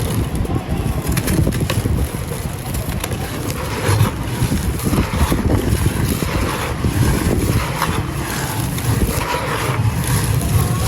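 Dry gritty sand clumps crumbling, with a stream of crunchy crackles over a steady low rumble of wind on the microphone.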